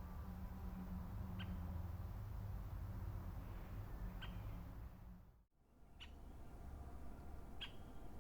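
Four short, high bird calls a second or two apart over a faint low rumble of background noise, which drops out for a moment just past the middle.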